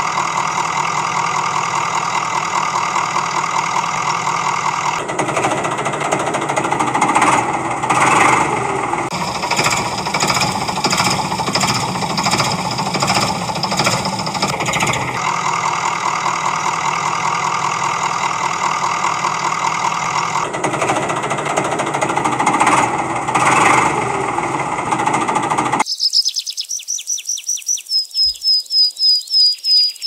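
Diesel engine running with a steady, rhythmic knocking chug that shifts in tone a few times. About four seconds before the end it cuts off abruptly and high-pitched insect chirping takes over, a run of rapid chirps.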